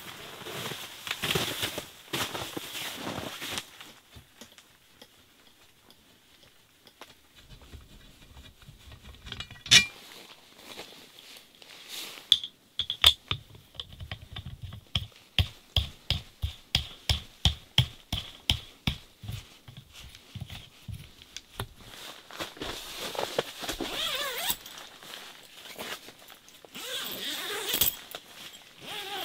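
Heavy tent fabric rustling, then a sharp click and a long run of evenly spaced clicks, about two a second, as a knob is turned onto the tent's roof hub to hang the inner liner. More fabric rustling and crinkling comes near the end as the liner is fitted to the wall.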